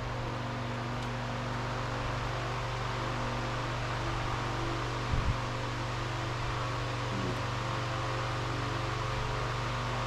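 Electric fan running: a steady low hum with an even airy hiss, and one brief low knock about five seconds in.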